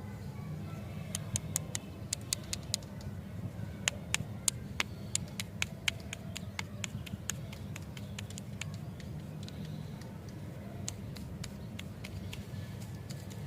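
Irregular sharp clicks and taps of small hard items being handled, most frequent in the first half, over a steady low hum.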